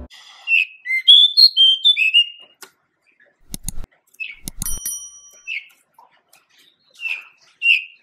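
Male pied bushchat (Saxicola caprata) singing: a brisk phrase of high whistled notes rising and falling, then a few single notes spaced out after it. A handful of sharp clicks fall in the middle.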